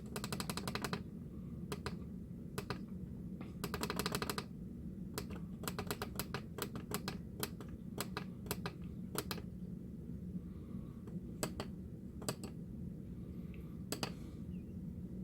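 Clicks from handling bench test gear: a quick ratcheting run of clicks at the start and another about four seconds in, then scattered single clicks, over a faint steady low hum.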